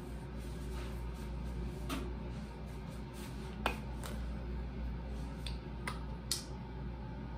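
Steady low room hum with a few faint, sharp clicks and taps from small objects being handled.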